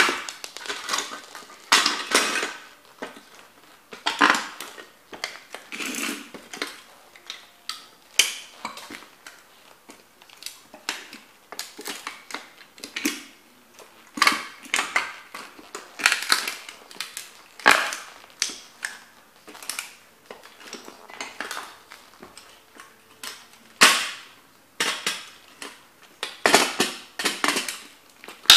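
Heavy lug-soled leather boots stomping and grinding on the broken remains of a toy car, its plastic pieces crunching and cracking under the soles. The stomps come irregularly, every second or two, some in quick flurries.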